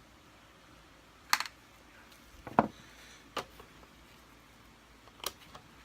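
Four sharp, irregularly spaced clicks and knocks of hand tools and plastic vacuum parts being handled while a screw is undone on a Kirby Sentria II vacuum. The second, about two and a half seconds in, is a duller and deeper knock.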